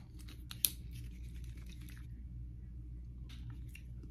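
Quiet small-room tone with a steady low hum, broken by a couple of light clicks about half a second in and a few faint ticks near the end.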